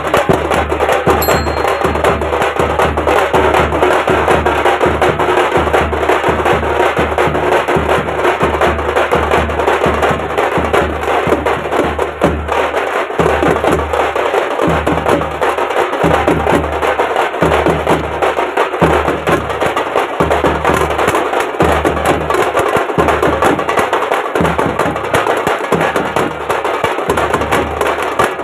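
Street drum band playing a fast, steady beat: several stick-beaten hand drums over a large bass drum.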